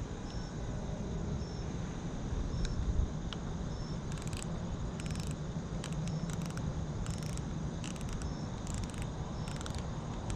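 Night insects chirping over a steady low rumble: one cricket gives a short high chirp about once a second, and from about four seconds in, bursts of buzzing high trills join it. There is a single knock about three seconds in.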